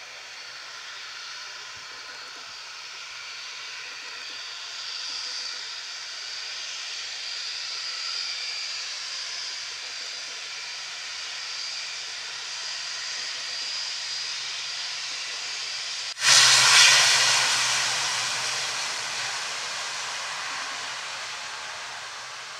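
ATR 72-500 turboprop airliner's two Pratt & Whitney PW127 engines running, a hissing propeller rush with a high steady whine, slowly growing louder as the aircraft comes closer. About sixteen seconds in it jumps suddenly to a much louder rushing blast of engine noise and propeller wind, then eases off over the following seconds.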